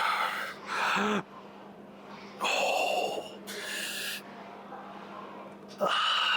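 A person breathing hard, with five loud, sharp breaths a second or so apart and a short grunt on one of them, the heavy breathing of someone working through a strenuous set. A steady faint hum runs underneath.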